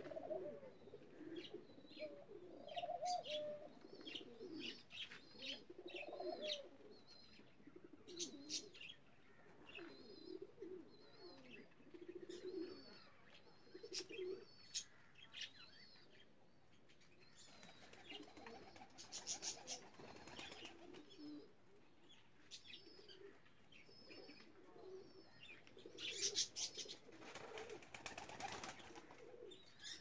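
Domestic pigeons cooing, low warbling calls over and over, with many short high-pitched chirps. Two spells of wing flapping come in the second half.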